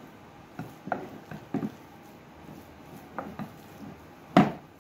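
Wooden spoon working mashed potatoes in a glass bowl: soft squishy scrapes with a series of short knocks against the glass, the loudest a little over four seconds in.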